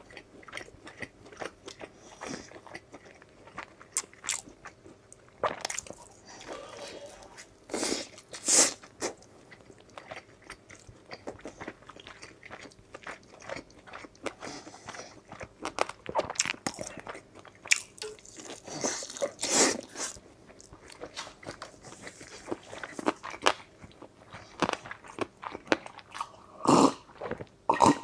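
Close-miked biting and chewing of chili-and-sesame-coated chicken legs: irregular crunches and wet chewing clicks, picked up by a clip-on microphone near the mouth.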